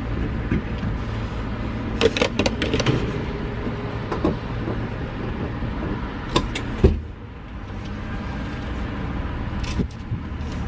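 Car running, heard from inside the cabin as a steady low rumble of engine and road noise. Several sharp clicks and knocks come through it, a cluster about two seconds in and a few more around seven seconds.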